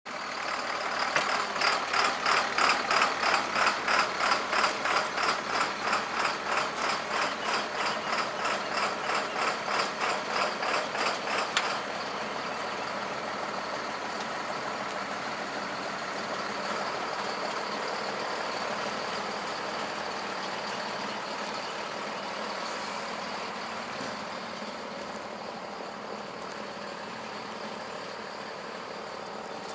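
Tractor running while working the hydraulics of a folding disc cultivator. For the first twelve seconds there is a loud, fast, even pulsing, about three beats a second, that stops with a sharp click. After that a steadier running sound carries on and eases off a little near the end.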